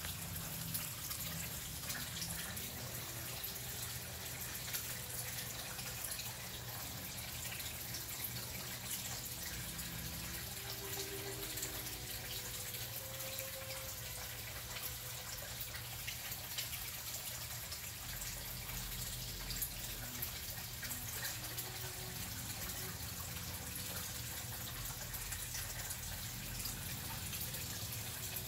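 Water running and splashing steadily into a backyard koi pond, heard as a continuous splashy hiss.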